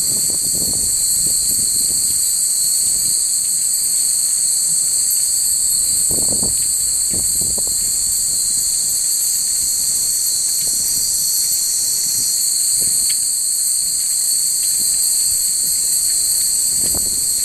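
A loud, steady, high-pitched chorus of insects, with a few faint tinkles from Japanese wind chimes (fūrin) and low gusts of wind on the microphone about six seconds in and near the end.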